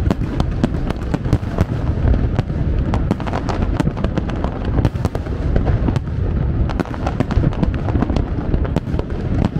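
Aerial fireworks going off in quick succession: many sharp cracks and pops over a continuous low rumble of bursts.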